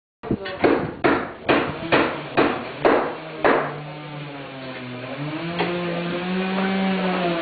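About eight sharp knocks, roughly two a second, each dying away quickly, then a steady sustained sound with several held pitches that slowly bend up and down.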